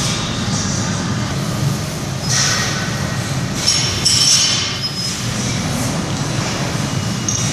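Steady low rumble of gym room noise from the ventilation, with brief shoe scuffs on the rubber floor close to the microphone about two and a half seconds in and again around four seconds.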